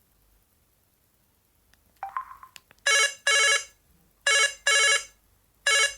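LG KC550 mobile phone playing a ringtone through its loudspeaker. The ring is a double ring of two short electronic tones, heard three times about every second and a half, with a short two-note blip just before it, about two seconds in.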